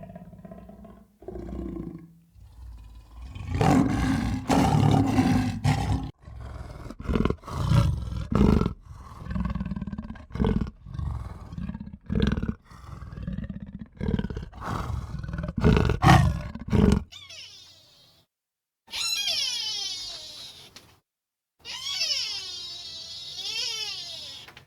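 Animal calls: a series of loud, low calls with short gaps for about seventeen seconds, then after a brief pause several high-pitched, wavering cries.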